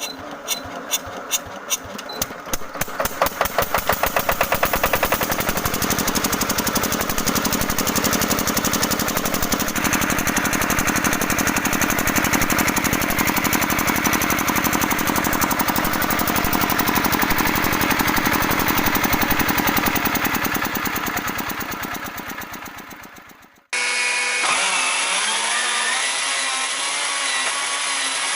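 An old engine starting: slow, separate firing strokes at first, about four a second, quickly picking up speed into a steady run. Near the end it dies away, then there is a sudden cut to a second engine running.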